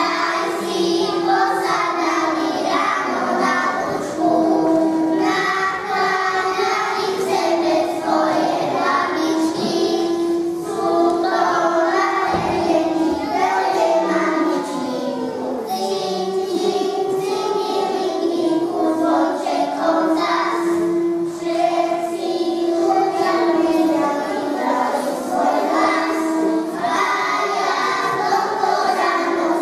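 A group of young children singing a song together on stage.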